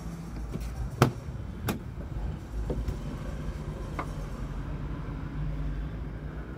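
A Volvo XC90's door handle and latch clicking as the door is opened: two sharp clicks under a second apart, about a second in, then a lighter click near four seconds, over a steady low rumble.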